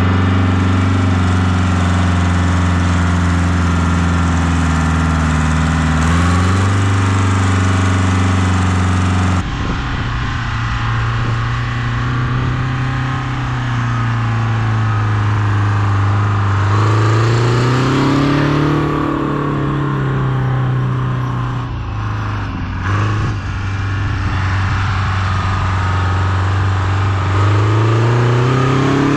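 Oliver tractor's diesel engine running steadily close up, rising in revs about six seconds in. After a sudden change, a tractor diesel is heard from further off, revving up and easing back twice as it is driven through snow.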